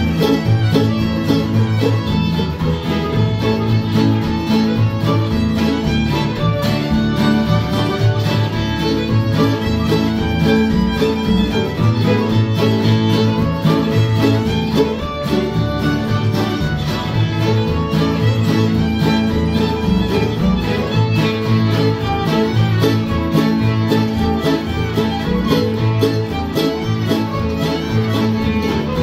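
Old-time string band playing a fiddle tune: fiddles bowing the melody over strummed acoustic guitar and mandolin, in a steady, unbroken dance rhythm, with a third fiddle joining partway through.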